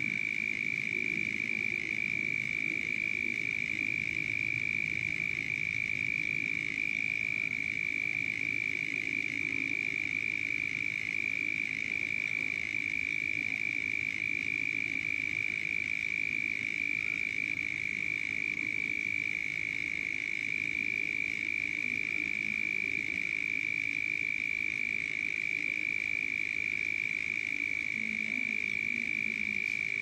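A dense night chorus of frogs calling: a steady, unbroken high trill over lower, busier croaking.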